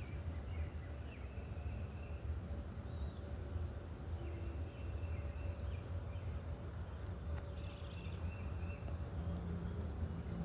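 Small songbirds chirping in quick clusters over a steady low outdoor rumble.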